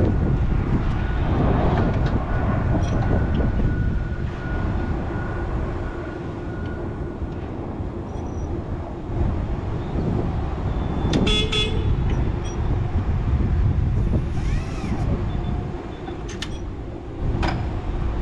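Horn of a Crown electric reach truck sounding once for about a second, roughly eleven seconds in, over a steady low rumble.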